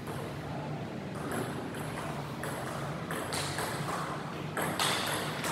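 Table tennis ball being hit back and forth in a rally: quick sharp clicks of ball on paddles and table, about two a second.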